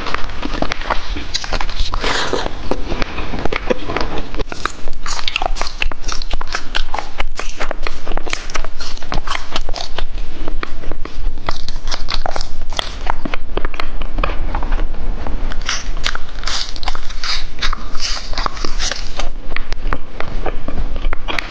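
Close-miked eating sounds: biting and chewing with many quick, sharp wet mouth clicks. In the later part the food being chewed is spicy gluten strips (latiao).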